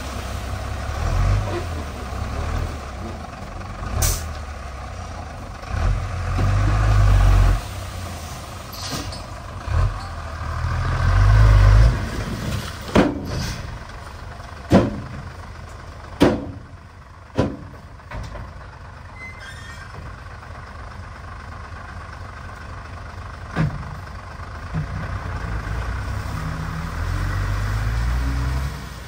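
Diesel dump truck engine revving in surges while tipping a load of dirt, then a few sharp bangs as the truck moves off over rough ground, and the engine pulling again near the end.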